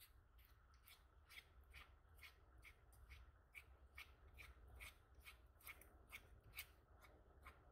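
Faint, regular scraping of a spatula spreading and folding ointment across an ointment paper pad, about two strokes a second: nitroglycerin ointment being mixed into an ointment base by hand.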